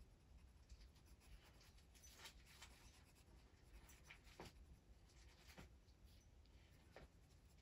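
Faint scratching of a sharpened dark blue oil-based colored pencil shading on paper, in a few short, light strokes.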